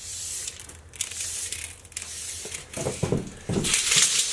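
Rustling and knocking handling noises as tools and a long strip are moved about, louder near the end.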